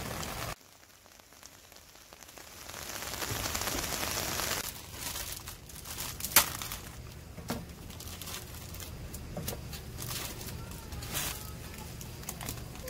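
Plastic instant-ramen packet crinkling and tearing as it is opened and emptied, with one sharp snap about six seconds in, over water bubbling at the boil in a stainless pot on a portable gas stove.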